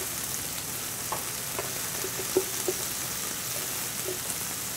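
Vegetables sizzling as they sauté in a frying pan, a steady hiss, while a spatula stirs them, with a few light knocks against the pan.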